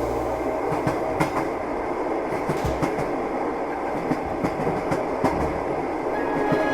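Railway carriage rumbling along with the clickety-clack of its wheels over rail joints: a steady rumble with irregular sharp clicks and a few low thumps.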